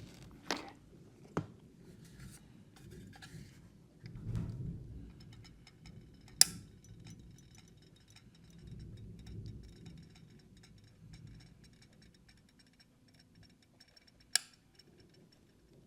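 Faint low rumble of distant thunder from a thunderstorm outside, swelling about four seconds in and again around nine seconds. A few sharp clicks and knocks stand out over it, the loudest about six seconds in and near the end.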